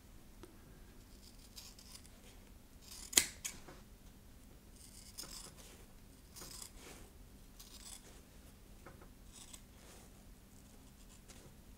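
Sharp utility shears cutting through sheet foam: a run of short, faint snips, the loudest about three seconds in.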